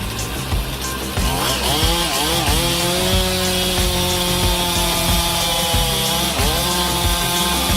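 Two-stroke chainsaw revving up and wavering, then running at steady high revs as it saws through wood. The engine pitch dips briefly about six seconds in and recovers.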